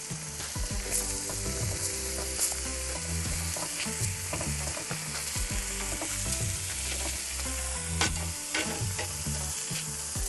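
Tomahawk steak sizzling on a hot cast-iron grill plate inside a wood-fired pizza oven, a steady hiss broken by scattered sharp clicks and pops.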